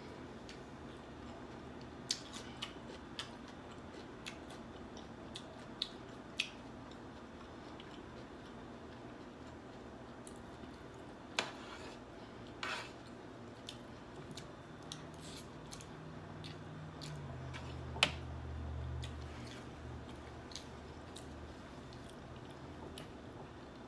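Close-up eating sounds: chewing on snow crab and sauced rice, with scattered sharp clicks and taps of a utensil against the dish and of crab shell, the sharpest about 18 seconds in.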